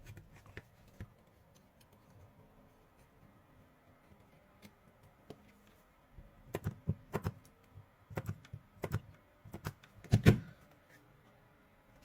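Small clicks and knocks of a 12 V drill battery pack's cells and nickel strips being handled and fitted together by hand. Scattered light clicks at first, then clusters of sharper knocks from about halfway, the loudest knock near the end.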